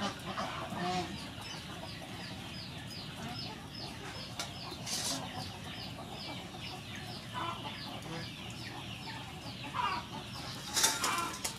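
Chickens clucking in the background, with a short high chirp repeated about three times a second for several seconds. Two sharp clicks stand out, about five seconds in and near the end.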